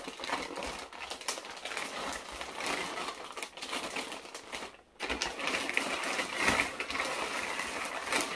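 Red plastic courier bag being pulled and torn open, a dense run of crinkling and crackling, with a brief gap about five seconds in.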